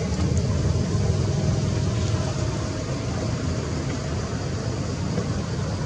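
Steady low rumbling background noise with a light hiss over it, and no distinct event.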